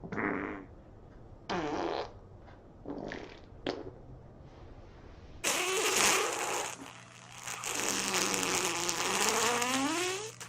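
Farts: four short ones in the first four seconds, then one long drawn-out fart of wavering, sliding pitch from about halfway through.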